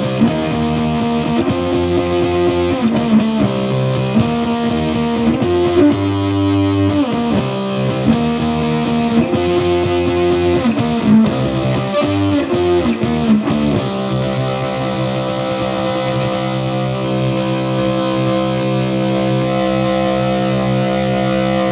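Solid-body tenor electric ukulele played through a guitar amp with an overdrive pedal stacked on a fuzz pedal, giving a heavily distorted tone. A repeated chord riff runs for about fourteen seconds, then one chord is struck and left to sustain.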